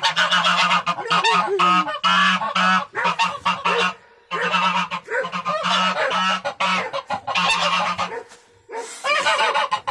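Domestic geese honking loudly and repeatedly, calls overlapping in a near-continuous racket, with two brief lulls.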